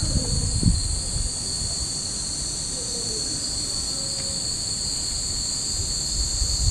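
Cicadas droning in a steady, high, unbroken chorus over a low rumble.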